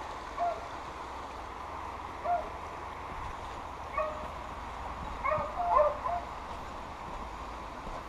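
Hunting dogs, beagles, baying while driving wild boar: short yelping calls about two seconds apart, then a quick run of several together about five to six seconds in.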